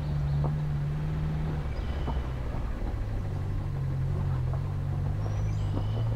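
A vehicle's engine runs at low revs on a rough gravel track, with scattered knocks from stones and bumps under the wheels. Its note dips a little under two seconds in and then slowly climbs again.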